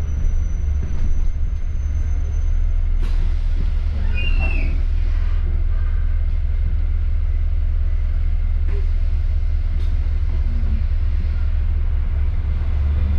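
Interior of a moving city bus: steady low rumble of engine and road noise. A thin high whine stops with a click about three seconds in, and a brief high squeal comes about a second later.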